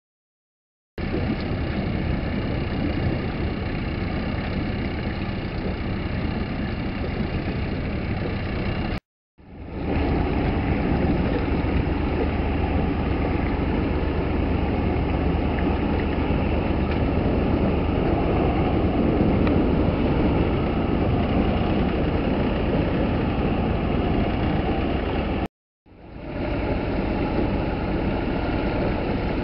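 A boat's engine running steadily with a low rumble. It starts abruptly about a second in, and drops out abruptly twice, about nine seconds in and again near the end, each time returning after a moment.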